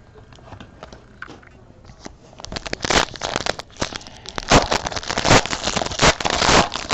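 Foil wrapper of a trading-card pack being torn open and crinkled by hand: a few faint clicks, then a dense crackle starting about three seconds in.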